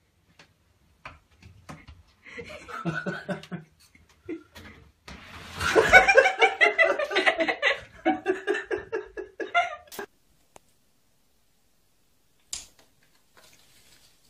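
A person laughing hard in quick repeated bursts, in two bouts: a short one, then a longer, louder one after a brief pause.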